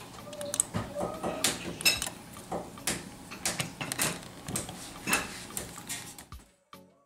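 Handling noise: irregular clicks, knocks and rustling over a steady hiss, starting and stopping abruptly.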